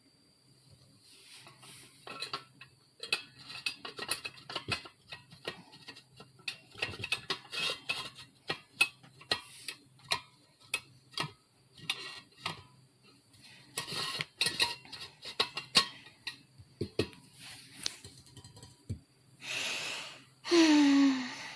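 Irregular light clinks and taps of metal kitchenware and dishes being handled. Near the end come two short, louder rushing sounds, the second falling in pitch.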